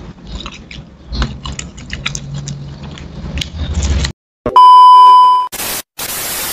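Close eating sounds for about four seconds: fried chicken torn by hand and chewed, with many small crunchy clicks. Then a sudden cut to a loud, steady, high test-card beep lasting about a second, followed by TV static hiss.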